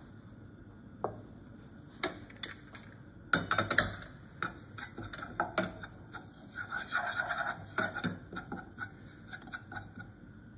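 A spatula scraping and knocking against a small non-stick saucepan as garlic and chili flakes are stirred in a little oil to toast. Scattered clicks, a cluster of louder knocks about three seconds in, and a stretch of scraping a few seconds later.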